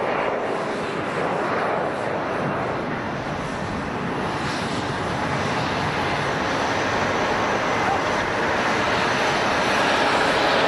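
Jet airliner engines running, a steady rushing noise that grows slightly louder near the end; the aircraft is a Japan Airlines Airbus A350 with Rolls-Royce Trent XWB turbofans.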